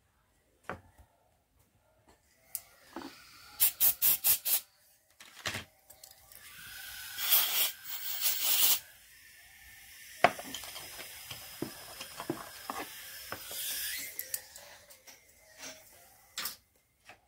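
Objects being handled: a quick run of four sharp clicks, then rustling and scraping with scattered knocks and clicks.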